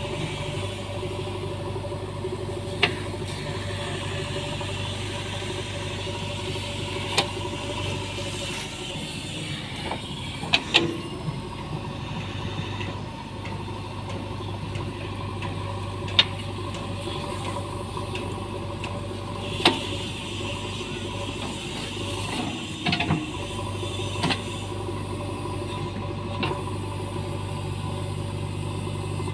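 JCB diesel engine running steadily while digging, with about nine sharp metallic knocks scattered through it and two brief dips in the engine's low hum.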